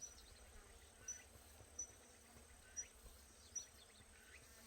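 Faint outdoor insect chorus: a steady high, thin drone with short high chirps about once a second.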